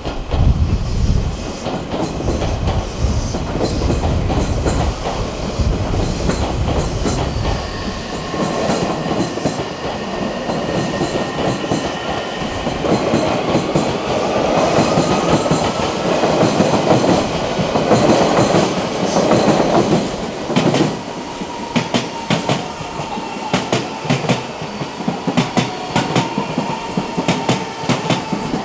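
Electric train running past with the whine of its VVVF inverter and traction motors shifting in pitch, then holding steady in the second half. A heavy rumble fills the first few seconds, and the wheels clack over rail joints more and more often toward the end.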